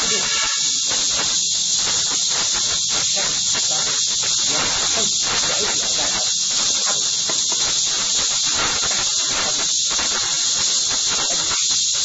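A steady, loud, high hiss with an even level throughout.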